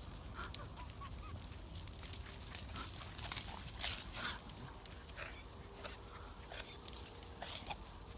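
Hooves of a flock of sheep scuffing and thudding on grass as they run past close by, busiest and loudest a few seconds in, over a low wind rumble. A few faint short chirps near the start.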